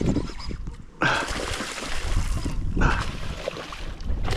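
A hooked fish thrashing and splashing at the water's surface while it is played on rod and line. The splashing starts suddenly about a second in and comes in two spells.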